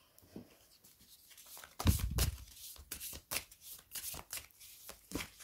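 A deck of oracle cards being shuffled by hand: a quick run of card flicks and taps starting about two seconds in, with a soft thump as it begins.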